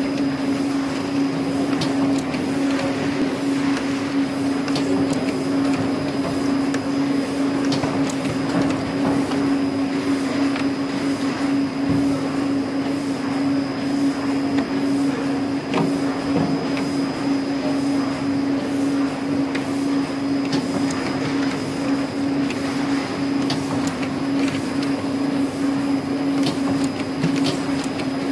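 ST440 semi-automatic wire saddle stitching machine running with a steady hum and a few faint clicks.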